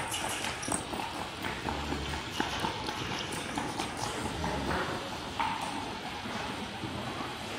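Miniature horse trotting on a dirt floor: a quick, irregular run of hoofbeats.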